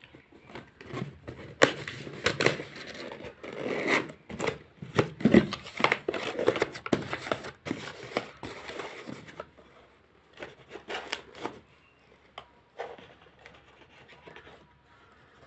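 Corrugated cardboard box being folded and assembled by hand: flaps creasing, rubbing and scraping with many sharp clicks and knocks for most of the first nine seconds, then a few scattered clicks and quieter handling.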